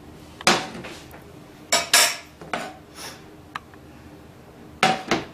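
A metal spoon and non-stick frying pans clanking and knocking: about eight sharp, irregular kitchen clatters spread over a few seconds.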